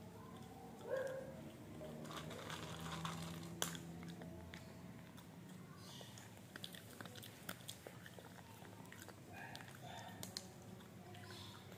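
Small long-haired dog chewing and crunching food taken from a hand, faint, with irregular crisp clicks of its teeth and a sharper crunch a few seconds in.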